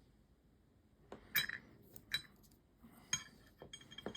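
Light metallic clinks and taps as small watch parts and fine hand tools are handled during disassembly. There are about six separate clicks, the loudest about a second and a half in, with a brief ring.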